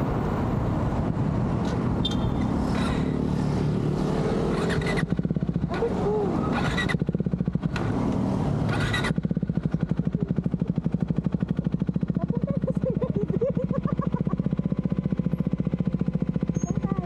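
Motorcycle engine running at low revs with a steady, even pulsing beat that becomes clearer and more regular about halfway through, with noisier stretches of passing traffic in the first half.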